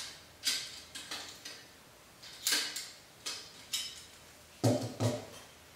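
Harris bipod being taken off a rifle: a string of about seven sharp metal clicks and clanks, irregularly spaced, as its parts are handled and unclamped.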